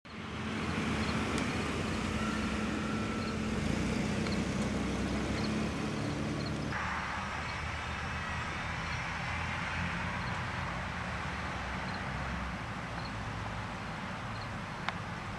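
Steady rumble of a car engine, with traffic noise around it. The sound shifts about seven seconds in, and there is a single sharp click near the end.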